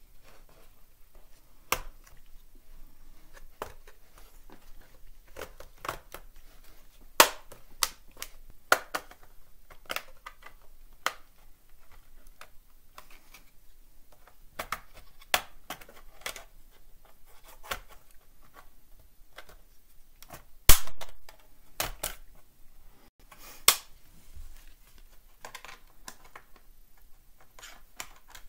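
Plastic snap clips of a laptop's bottom case popping loose one after another as the cover is pried off: sharp separate clicks and snaps, the loudest a little over two-thirds of the way through.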